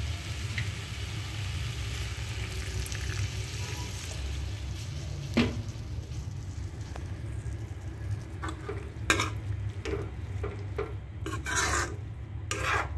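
Potatoes and pumpkin leaves sizzling in an iron kadai just after a splash of water, with one sharp clink about five seconds in. From the second half on, a spatula scrapes and stirs against the pan in repeated short strokes.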